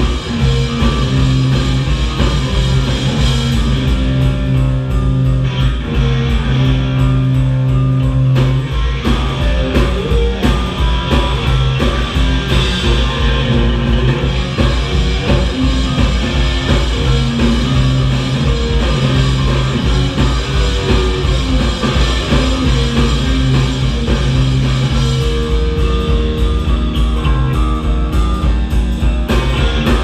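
A rock band playing live: electric guitar, electric bass and drum kit, with held bass notes under a steady drum beat.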